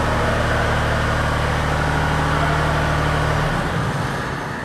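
Boom lift engine running steadily, then cutting off about three and a half seconds in and dying away.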